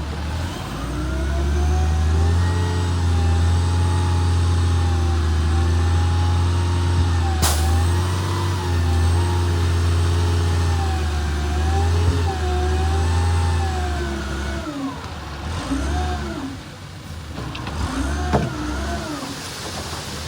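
Diesel engine of earthmoving machinery working under load, its pitch wavering up and down. Near the end it eases off and revs up and down in short swells, and a sharp click sounds about seven seconds in.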